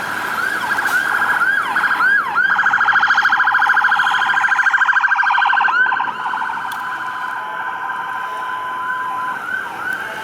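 Electronic emergency-vehicle sirens of responding apparatus, sweeping up and down in pitch, switching about two seconds in to a louder, very rapid warble that lasts about three seconds, then back to slower rising and falling sweeps.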